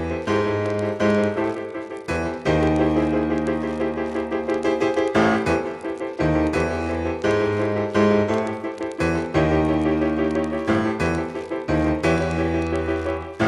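Piano music: chords struck and held, changing every second or two.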